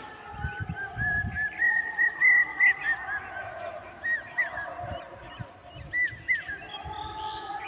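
Birds calling: a run of short honking calls, each rising and falling in pitch, several a second, with a few low thumps in the first second and a half.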